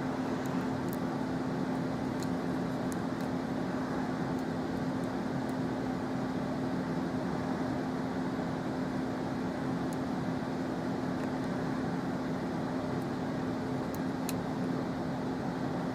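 Steady background hum with a constant low tone, like a fan or air conditioner, with a few faint, sparse ticks of a lock pick working the pins inside a Euro cylinder.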